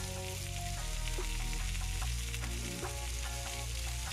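Chicken legs sizzling steadily as they sear on a hot ridged stovetop grill pan, with background music carrying a bass line and short notes over it.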